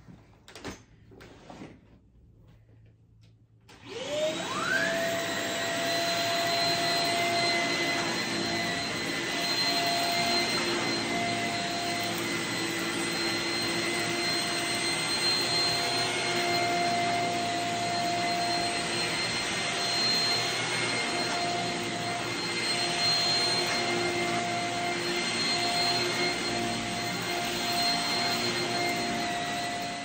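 Shark Rocket Pet corded stick vacuum switched on about four seconds in, its whine rising quickly to a steady pitch, then running steadily as it vacuums carpet on its high-pile carpet setting.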